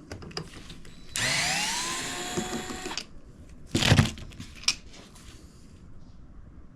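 A power tool motor whirs for about two seconds, rising in pitch as it spins up, then holding steady and stopping. About a second later comes a loud metallic knock, then a light click.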